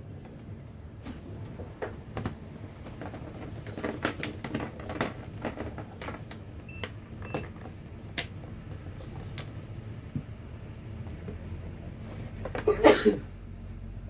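Scattered small clicks and handling noises over a low steady hum. Two short high electronic beeps come about seven seconds in, half a second apart, and a louder brief clatter comes near the end.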